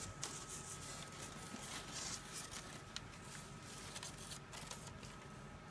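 Styrofoam lid being scraped loose and lifted off an insulated shipping box, with irregular rustling of the foam and the cloth packing inside.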